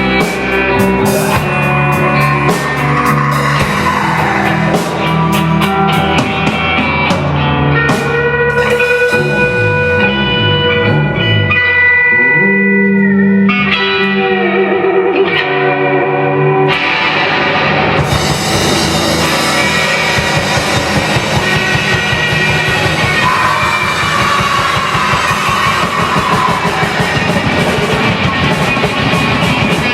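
Heavy rock music with distorted electric guitar and drums; the arrangement thins out partway through, then the full band comes back in about 18 seconds in.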